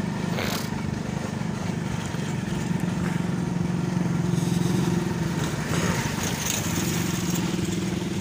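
Small motor-vehicle engine running steadily, with an even low hum.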